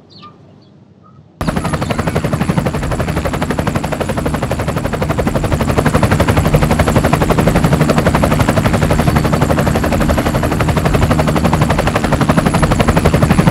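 Bell 206 JetRanger helicopter lifting off and flying low: a loud, rapid, even chop of the rotor blades with a thin high whine over it. It starts suddenly about a second and a half in.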